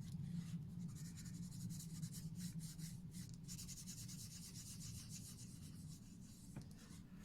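Faint rubbing and scraping with quick, irregular strokes over a low, steady hum.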